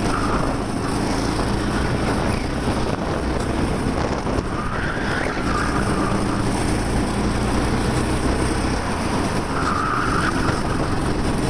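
A 13 hp racing kart's engine running hard under load, heard through a helmet microphone with wind noise, its pitch dropping and climbing again twice through the bends. The tyres squeal briefly about five seconds in and again near the end as the kart corners.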